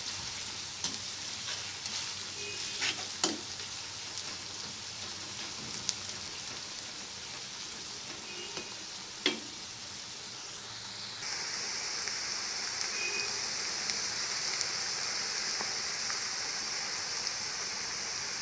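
Sliced onions sizzling in hot mustard oil in a kadhai while being stirred and browned lightly, with a few sharp knocks of the spatula against the pan. The sizzle gets louder about eleven seconds in.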